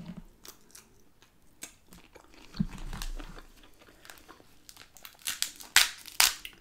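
Close-up eating sounds: chewing shrimp, then a snow crab cluster being twisted and its shell snapped apart by hand. Small crackles lead up to two loud, sharp cracks near the end as the legs break off.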